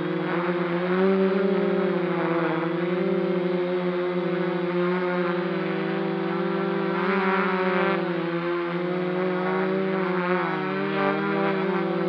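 Quadcopter drone's propellers and motors running in flight, a steady buzzing hum whose pitch wavers slightly as the drone holds and adjusts its position.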